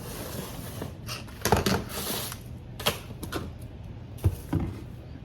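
A robot vacuum's cardboard box and packaging being opened and handled: rustling, with several sharp knocks and clicks.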